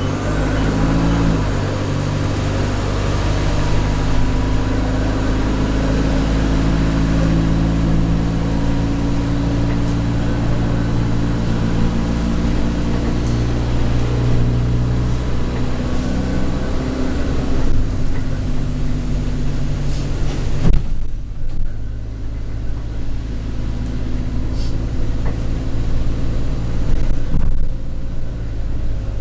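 Interior sound of an Alexander Dennis Enviro200 bus under way: the diesel engine runs under load with a high turbo whine that climbs slowly over about seventeen seconds and then dies away as the power comes off. A sharp knock comes during the lull, and then the whine builds again before fading near the end.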